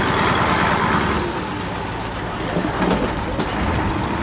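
Diesel engine of a parked ERF fire engine idling steadily close by, with a few light clicks about three seconds in.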